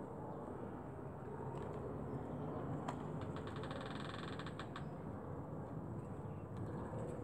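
Kittens scrabbling in a plastic crate: light clicks and scratches of small claws on the mat and plastic, with a quick rattling run of clicks about three seconds in, over a steady low background hum.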